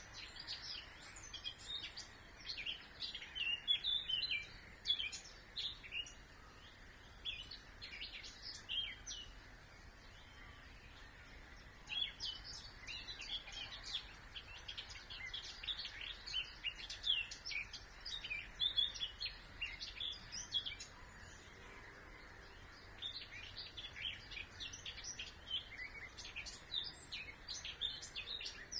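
Songbirds singing in quick, chirping phrases that come in three bouts with short pauses between them, over a faint, steady background noise.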